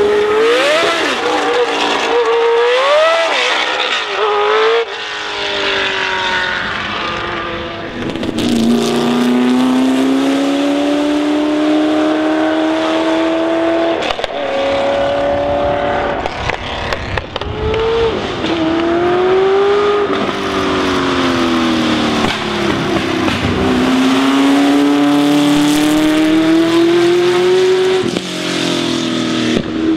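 Historic Formula 1 car engines at full throttle, one car after another, each note climbing in pitch and dropping back at every upshift. The sound changes abruptly several times as one car's run gives way to the next.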